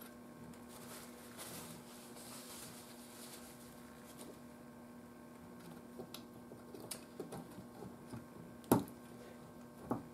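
Quiet workbench handling sounds from working on a tube radio: a few sharp clicks and taps in the second half, the loudest near the end, over a faint steady hum.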